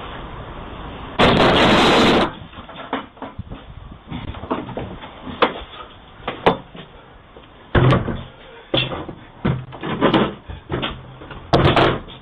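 A loud rush of noise lasting about a second, then a string of irregular knocks and thuds, like knocking or banging on a door.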